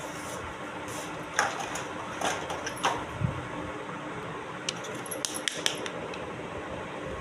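Small plastic toy kitchen pieces being handled, giving a scattered run of light clicks and taps over a steady background hiss.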